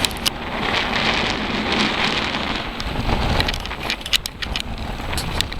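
Ocean surf washing onto a beach: a steady rushing hiss, with wind buffeting the microphone as a low rumble and a few sharp ticks near the end.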